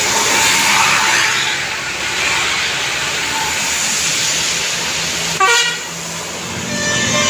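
Steady rushing traffic noise from passing vehicles, cut by one short blast of a bus horn about five seconds in.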